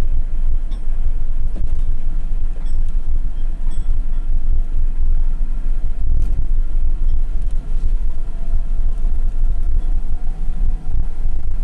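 Mercedes-Benz Unimog's diesel engine and drivetrain heard from inside the cab while driving on a gravel track: a steady low drone with road rumble and a few light clicks and rattles.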